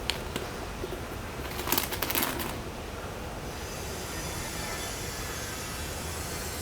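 Handling noise: a couple of sharp clicks, then a short burst of crackly rustling about two seconds in, over a steady low hum.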